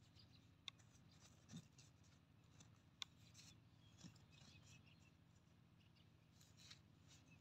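Near silence, with faint scratching of fingers in dry sandy soil and two small sharp clicks, about a second in and near the halfway point.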